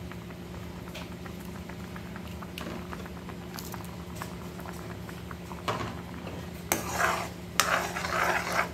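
Steel spoon stirring and scraping round an iron kadhai of thickening milk being reduced to mawa, with scraping strokes coming in from about six seconds in. Before that the milk simmers with faint bubbling over a steady low hum.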